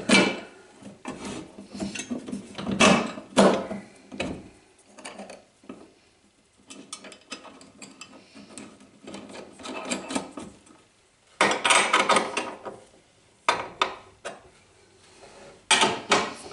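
Steel nuts, bolts and a ring spanner clinking and scraping on a drill press's metal base as it is bolted down, in irregular handling knocks. About twelve seconds in comes a denser run of rapid clicking and scraping, and a short burst of it near the end.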